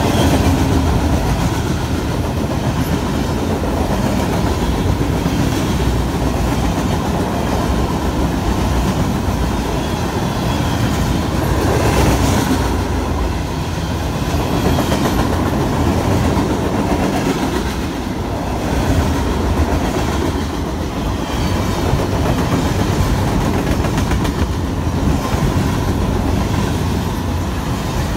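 Steel wheels of loaded freight-train flatcars rolling past close by: a steady rumble on the rails with clickety-clack as the wheel sets cross rail joints.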